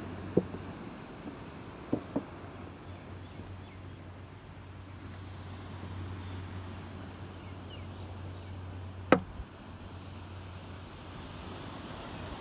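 Outdoor ambience: a steady low rush with a faint, steady high whine and scattered faint chirps. Sharp knocks break through: one near the start, a pair about two seconds in, and the loudest about nine seconds in.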